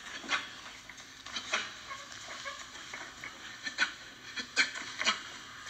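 A boxer shadowboxing: a handful of short, sharp hissing bursts at irregular intervals, about one every second, that go with his punches and footwork.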